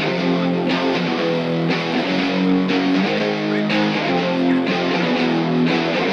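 Music: a guitar playing sustained chords, struck about once a second, with no vocals.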